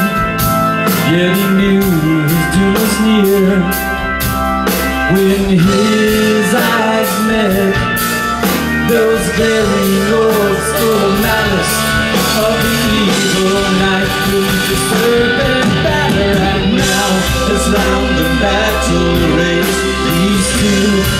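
A live rock band playing at full volume: electric guitars, drum kit with steady cymbals, and keyboards.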